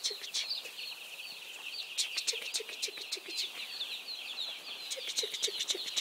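A large flock of baby chicks peeping all at once: a dense, continuous chorus of many overlapping short, falling chirps.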